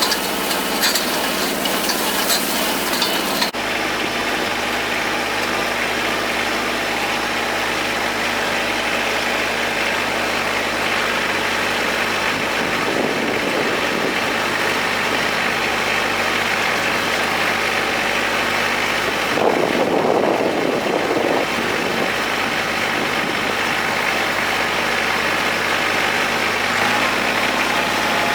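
Kubota tractor's diesel engine running with a steady hum while pulling a hay tedder. The sound changes abruptly about three seconds in, and swells briefly about twenty seconds in.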